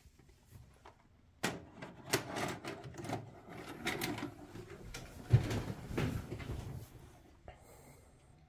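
A VHS cassette being pushed into a VCR and loaded: a run of plastic clicks, knocks and rattles, with one heavier clunk about five seconds in.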